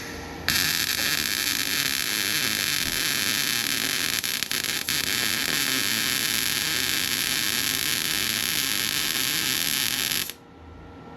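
A welder laying a continuous bead on steel exhaust pipe, a steady crackling hiss for about ten seconds that flickers briefly midway and cuts off suddenly near the end.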